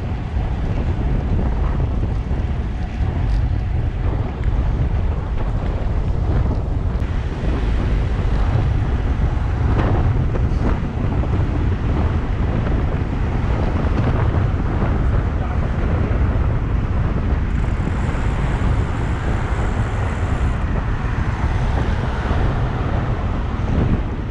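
Steady wind rumble buffeting the microphone of a camera on a moving road bike.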